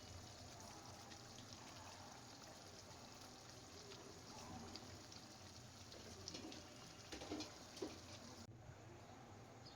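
Faint steady sizzling of chicken cooking in oil in a pan, with a few light knocks about seven to eight seconds in.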